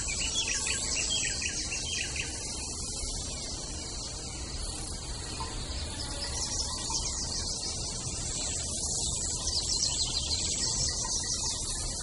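Small waterfall pouring down a narrow rock chute into a pool: a steady rush of falling, splashing water with a bright high hiss.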